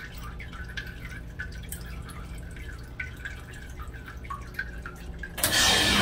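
Fluid dripping from a leaking pipe joint into a puddle below, a quick irregular patter of small drips. Near the end a loud steady machine noise starts up suddenly and drowns it out.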